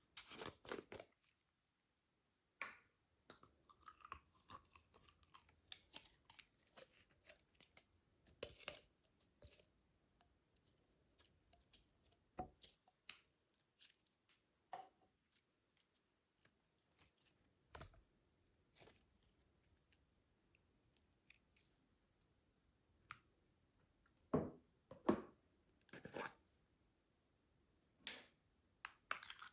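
Slime being worked in plastic bags: scattered soft crackles, squishes and clicks, with a louder cluster about 25 seconds in and again near the end.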